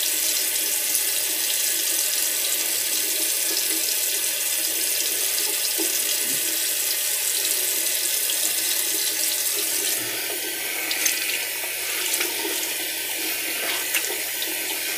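Tap water running steadily into a sink. About ten seconds in the flow sound drops slightly, and a few light clicks follow.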